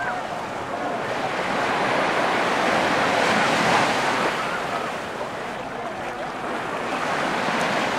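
Mediterranean surf breaking on a sandy beach and washing up the shore, swelling to its loudest about halfway through, easing, then building again near the end.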